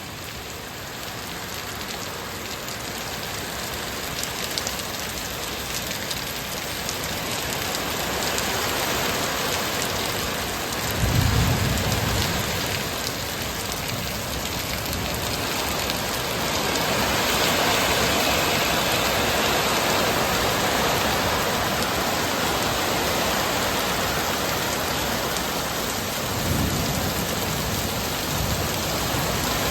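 Heavy rain pouring down in a thunderstorm, growing louder over the first several seconds. Thunder rumbles low about a third of the way in, the loudest moment, and again near the end.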